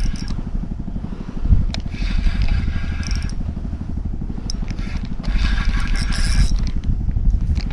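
Wind buffeting the microphone in a heavy low rumble, over the scraping whir of a spinning reel being cranked to bring in a hooked fish.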